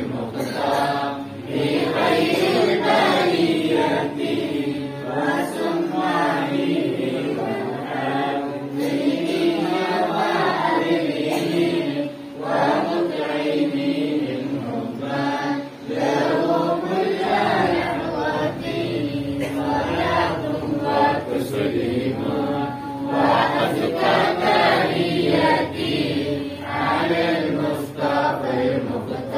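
An Islamic devotional chant sung together by a group of men and boys, many voices rising and falling as one continuous melodic line.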